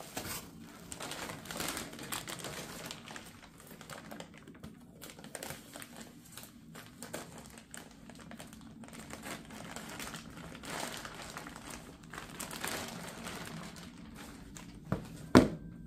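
Clear plastic packaging bag crinkling and rustling as it is handled and pulled open, with one sharp click near the end.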